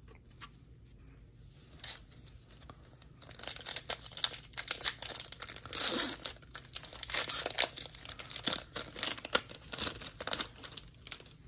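Foil wrapper of a Topps 2023 Black & White baseball card pack being torn open and crinkled. A few faint clicks, then dense crackling and tearing from about three seconds in until near the end.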